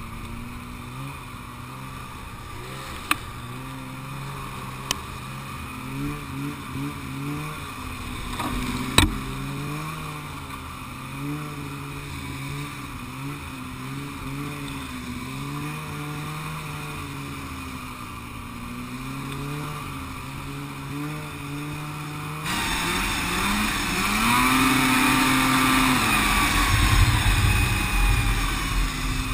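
Snowmobile engine heard from on board, its pitch rising and falling as the throttle is worked along a snowy trail, with a few sharp knocks in the first ten seconds. About two-thirds of the way in it gets louder as the throttle opens, with more rushing noise.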